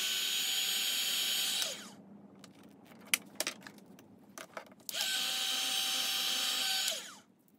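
Handheld heat gun switched on twice for about two seconds each, blowing and whirring, its motor pitch falling as it shuts off, while the end of a quarter-inch irrigation tube is warmed at its nozzle to soften it for pushing onto a fitting. Between the two runs, light clicks of plastic fittings being handled.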